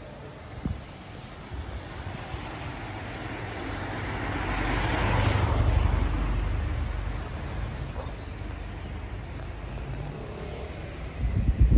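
A car passing by on the street, its tyre and engine noise swelling to a peak about halfway through and then fading. A short thump comes early on, and a burst of loud low thumps near the end.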